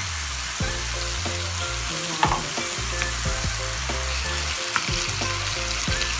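Upo (bottle gourd) and sardines in tomato sauce sizzling in a frying pan, with a spatula knocking and scraping against the pan several times as they are stirred. Background music with a low, stepping bass line plays underneath.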